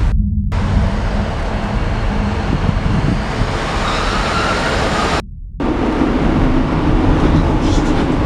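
Passenger train pulling into a station: a loud, steady rumble with a faint rising whine partway through. The high end drops out abruptly twice, as at edit cuts.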